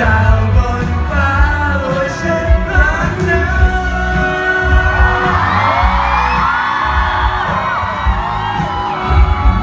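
Live pop song over a loud PA, with sung vocals over a heavy bass beat. From about five seconds in, a crowd screams over the music for a few seconds.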